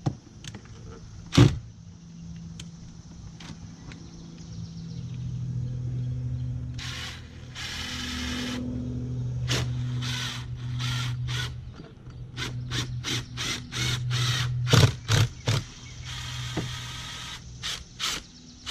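Cordless drill driving screws through the shutter into the wall, its motor running in long steady spells, with a sharp click early on and a run of quick clicks near the end.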